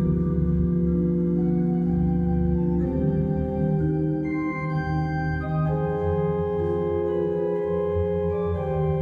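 Church organ playing slow, sustained chords over a low bass, the held notes changing every second or two.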